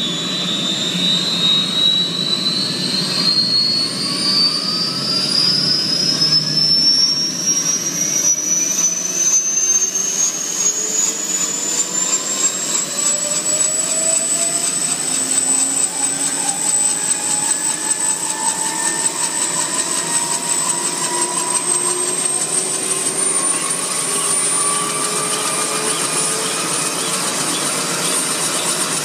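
Kaman K-MAX helicopter's turboshaft engine running up on the ground, its rotors turning: a high whine that rises steadily in pitch for about the first half, holds, then steps up a little more about three-quarters of the way through, over a steady rushing noise.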